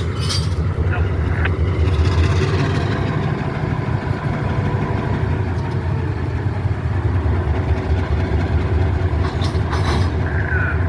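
Engine idling with a steady low rumble, with a few faint clicks near the end.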